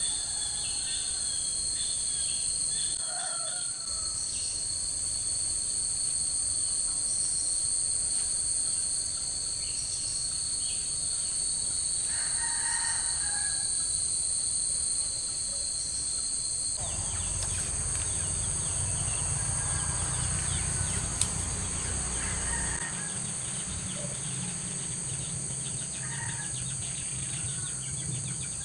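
Steady, high-pitched insect chorus, with a few short bird calls now and then. A little over halfway through, a low rumble joins it.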